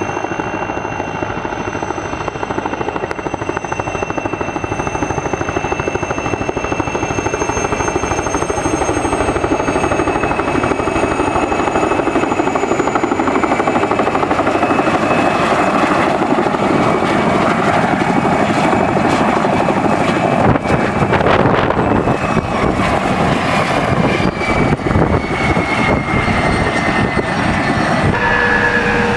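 Mi-2 helicopter's twin turboshaft engines and main rotor running as it comes in low, hovers and sets down, growing louder; near the end a turbine whine drops in pitch.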